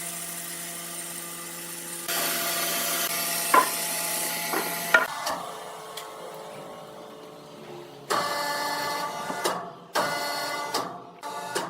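Sawmill machinery running with a steady hum, and a saw cutting wood in several loud stretches that start and stop abruptly, with a few sharp knocks.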